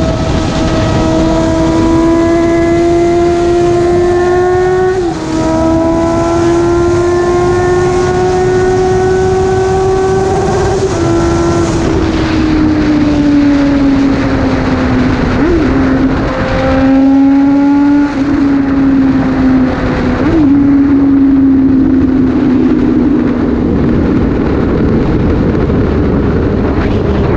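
Motorcycle engine running at high revs at highway speed under heavy wind rush, its pitch creeping up, then falling as the bike slows, with two short blips of the throttle on the way down.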